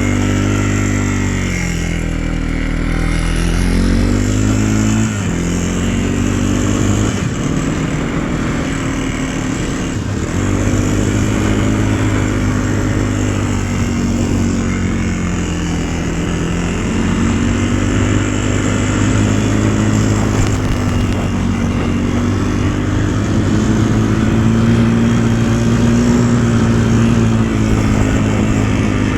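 A vehicle's engine running under way, its note rising and falling several times as the rider speeds up and eases off.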